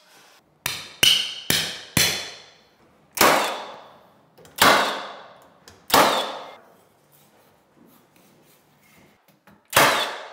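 Cordless nail gun firing eight times into a door jamb as a pre-hung door is fastened, each shot a sharp crack that echoes in the bare room. Four shots come in quick succession, then three about a second and a half apart, and one more near the end.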